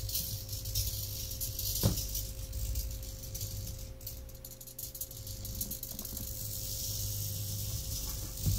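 Small hobby servos of a MeArm robot arm buzzing and chattering as the arm is driven by remote control, with a sharp click about two seconds in.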